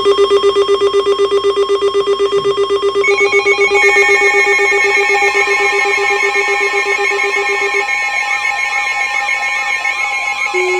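Several NOAA weather radios sounding their alert alarms at once: loud, rapidly pulsing beeps at several pitches that start suddenly. More tones join about three and four seconds in, and near the end the lowest beep stops while a warbling, siren-like tone rises and falls.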